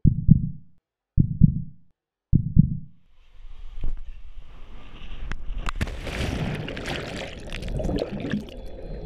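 Three slow, deep heartbeat thumps with silence between them, then a rush of air and a splash as the dive goes into the pool, giving way to underwater bubbling and gurgling.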